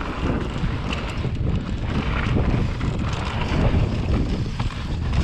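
Wind rushing over the microphone of a mountain bike riding fast down a dirt trail, with the tyres rumbling and the bike rattling with small irregular knocks over the bumps.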